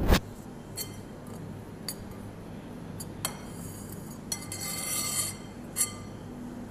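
Metal spoon clinking and scraping against a glass mixing bowl while stirring flaked tuna. There is a heavy knock at the very start, a few light clinks, and a longer ringing scrape about four and a half to five seconds in.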